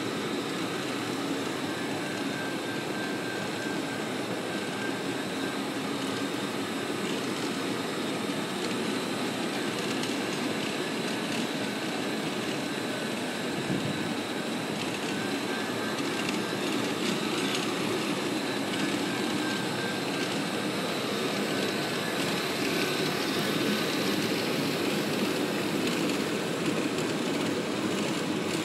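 Concrete floor grinder-polisher running, its pad head turning on a concrete slab: a steady drone with a faint high whine that comes and goes.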